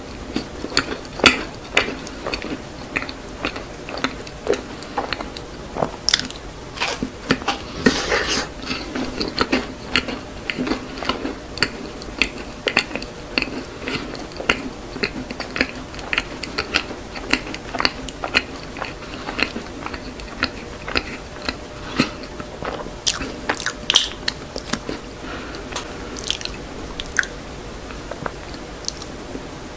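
Close-miked chewing of a macaron: a steady run of small mouth clicks and soft crunches, some louder than others.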